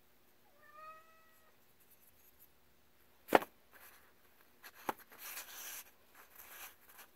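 A cat meows once, briefly. Then a small paracord-wrapped knife is set down on paper with a sharp knock, followed by a lighter click and a short rustle of paper.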